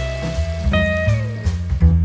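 Background music: an instrumental stretch of a song, with steady bass notes under a held melody note that slides down about a second in.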